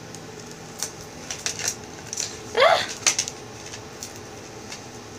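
Handling noise as a choker necklace is worked off its display card: scattered small clicks and rustles, with a short rising tone about two and a half seconds in.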